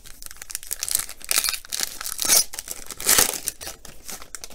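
Plastic-foil wrapper of a Panini Rookies & Stars football card pack being torn open and crinkled by hand, in several crackling spells, the loudest about three seconds in.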